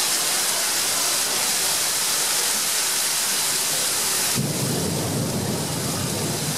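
Heavy rain pouring down steadily on a paved street. About four seconds in, a low rumble joins the rain.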